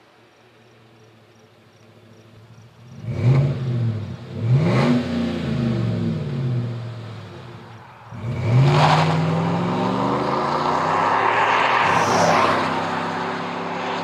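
GMC Sierra 1500's 5.3-litre V8 breathing through a Flowmaster Force II cat-back exhaust with a Super 50 series muffler, revving under acceleration. Engine pitch rises and falls twice a few seconds in. After a brief dip, a longer pull climbs, holds loud, and slowly fades near the end.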